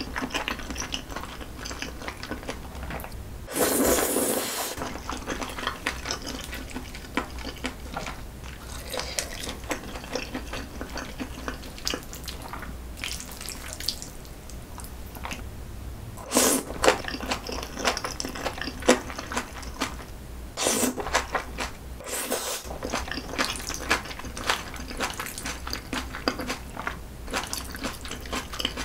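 Close-miked eating sounds: wet chewing and smacking of saucy jjajangmyeon noodles, with many small wet clicks. A few louder noodle slurps come about 4 seconds in, at about 16 seconds, and twice more shortly after 20 seconds.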